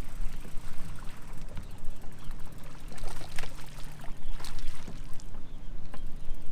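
Water slapping against a small fishing boat's hull, under a steady low hum, as a hooked bass splashes at the surface beside the boat several times between about three and five seconds in.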